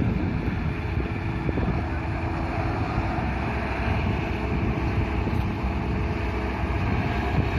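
Heavy diesel engines of road-paving machinery running steadily with a low rumble, as a dump truck unloads asphalt mix into a paver.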